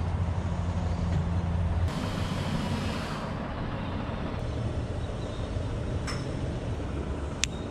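A diesel engine running steadily, a low hum that is strongest in the first two seconds and eases a little after, with a short sharp click near the end.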